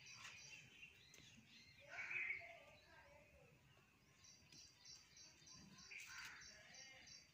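Faint birdsong: a few high chirps, a louder call about two seconds in, then a high chirping repeated about three times a second from about halfway through.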